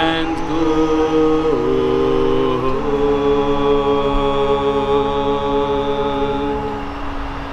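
A small ensemble of voices chanting in harmony on long held notes. The chord shifts down about a second and a half in, then up again a little later, and holds steady before thinning near the end.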